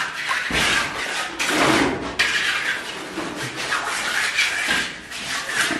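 A hand tool scraping and spreading wet concrete across a floor slab, in several irregular strokes.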